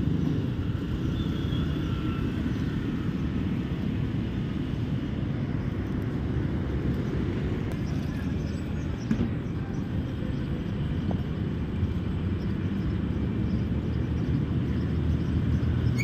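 Steady low rumble of outdoor background noise, with a few faint clicks.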